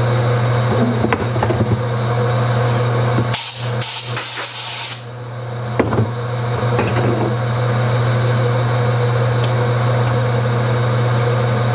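Shop machine, likely the lathe used for chambering the barrel, running with a steady hum. About three and a half seconds in there is a loud hiss lasting about a second and a half. A few sharp clicks are scattered around it.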